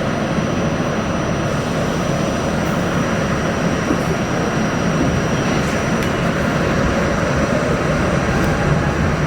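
Inside an R68A New York subway car in motion: a loud, steady rumble of the train running on the track. It swells a little in the first second as the train pulls away, then holds steady.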